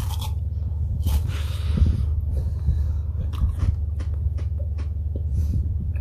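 Biting into a frozen block of yogurt and chewing it: scattered crisp clicks of teeth on the ice-hard yogurt, with a breathy hiss about a second in, over a steady low hum.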